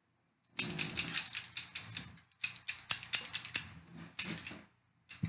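Metal rattling and clinking as a Marcel crimp iron is taken out of its heating stove: a busy run of clicks and clanks in three stretches with short gaps.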